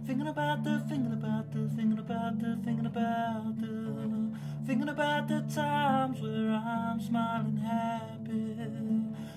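Background music: a song with guitar accompaniment and a melody line running between its sung lyrics.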